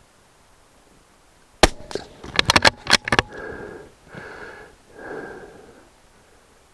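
A single shot from a Vudoo Gunworks bolt-action .22 LR rifle firing CCI Standard Velocity ammunition, about one and a half seconds in, followed by a quick run of sharp clicks as the bolt is worked to eject the case and chamber the next round.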